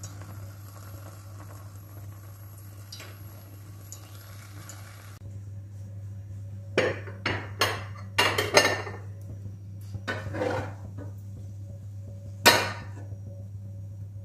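Metal spoon clinking and scraping against a frying pan and ceramic plates while thick flour porridge is stirred and served: a run of sharp clinks begins about seven seconds in, with the loudest single clink near the end, over a steady low hum.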